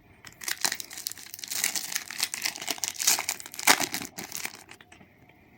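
Crinkling of a Match Attax card pack's foil wrapper as it is torn open, dense crackling that dies down about four and a half seconds in.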